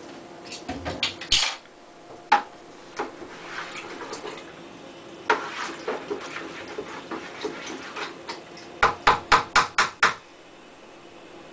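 A wooden spoon stirring nutrient solution in a plastic 5-gallon bucket, knocking against the bucket's sides. Scattered clicks and knocks, then a quick run of about six knocks a second near the end.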